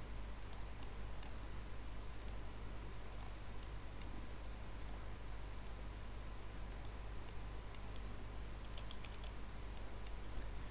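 Computer mouse clicking: a dozen or so light, short clicks at uneven intervals, roughly one a second, over a faint steady low hum.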